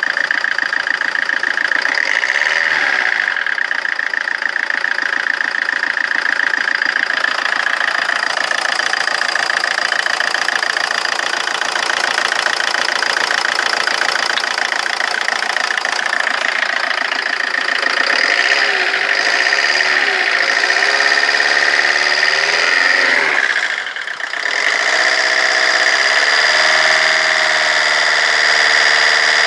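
Rover 25's diesel engine idling roughly with a steady clatter. Past the middle the revs wander up and down, dip briefly, then settle back to an even idle.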